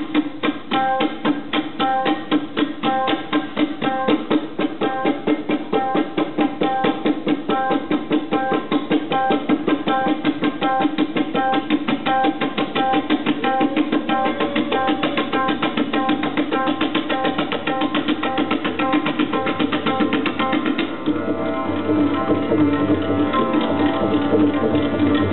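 Tabla played in a fast, unbroken run of strokes, the pitched treble drum ringing over a steady rhythm, in a piece imitating a train. About 21 s in the playing shifts to heavier, deeper bass-drum strokes.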